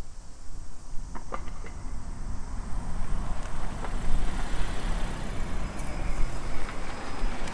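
Street traffic: a car driving past, its engine and tyre noise growing louder about three seconds in over a steady low rumble.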